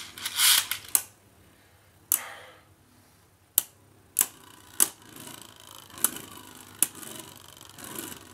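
Two plastic Beyblade Burst spinning tops, Legend Spryzen and Kinetic Saturn, spinning in a plastic stadium and clacking into each other: sharp hits at uneven intervals, about seven of them, with a faint whirr of spinning between the hits.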